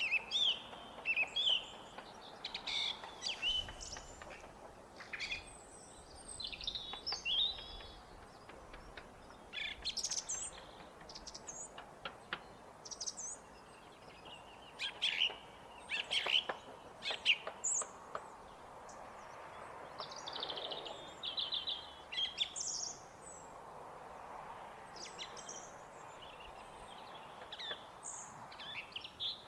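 Song thrush singing: a string of varied, high, clear phrases, several of them repeated in quick runs, over a faint steady background hum.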